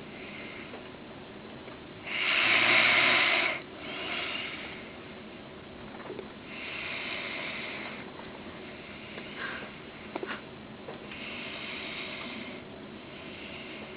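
A man snoring as he sleeps: several noisy breaths a few seconds apart, the loudest and longest about two seconds in.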